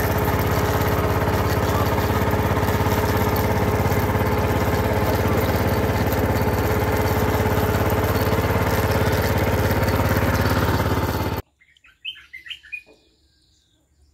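Small boat engine running steadily at one even pitch, cutting off suddenly about eleven seconds in. A few faint bird chirps follow in the quiet after it.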